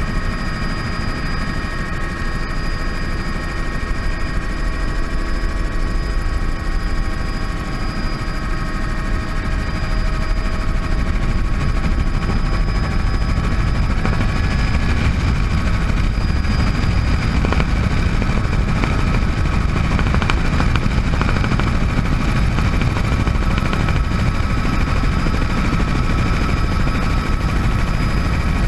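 Bell 206 JetRanger helicopter running steadily in flight: a continuous turbine whine made of several steady high tones over a heavy low rotor and engine rumble, getting slightly louder about ten seconds in.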